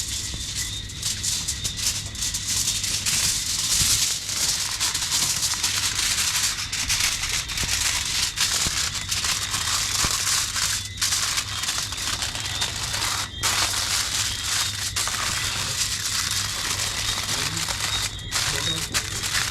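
Continuous crinkling and crackling of wrapping being folded around the seasoned conch to make a package for the grill.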